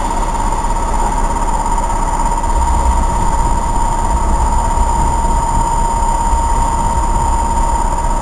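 Class 73 electro-diesel locomotive standing still and running, a steady high whine over a low rumble that grows a little about two and a half seconds in.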